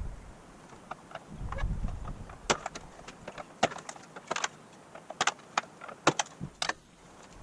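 Irregular sharp clicks and clacks of hand tools and plastic parts as a pickup's grille is unbolted and its plastic retaining clips are released, with a brief low rumble a little over a second in.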